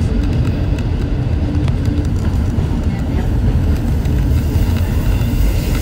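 Steady low rumble of a train running on the rails, heard close by.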